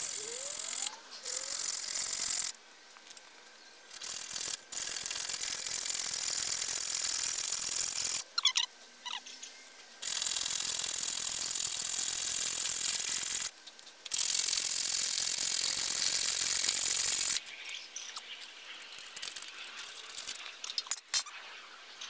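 Hacksaw cutting a galvanized steel greenhouse pipe, sped up eight times so the strokes run together into a fast, high-pitched rasp. The sawing comes in four long spells with short pauses between, and stops about 17 seconds in, leaving a few faint clicks and knocks.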